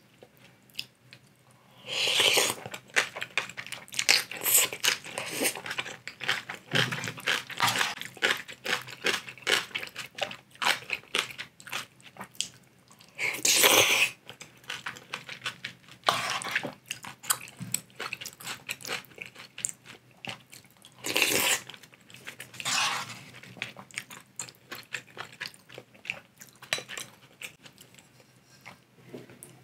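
Close-miked eating of spicy instant ramen: wet chewing with crisp crunches throughout, and three longer, louder slurps about two, thirteen and twenty-one seconds in.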